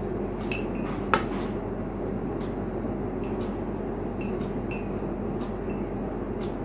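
Steady background hum with a few light, sharp clicks and clinks scattered through it, the loudest about a second in.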